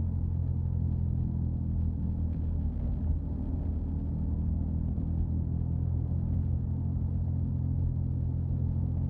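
A 2005 Subaru Outback's unwanted humming noise: a steady low drone made of several even tones that holds without change, with faint scattered ticks above it.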